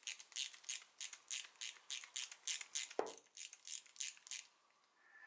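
Reach adjuster of a Hope Race Evo brake lever clicking as it is turned anti-clockwise with a 2mm Allen key, about three to four evenly spaced clicks a second. The clicking stops a little after four seconds in.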